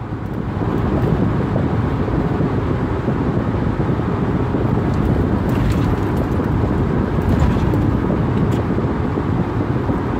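Steady road and engine noise inside a car's cabin while driving at highway speed.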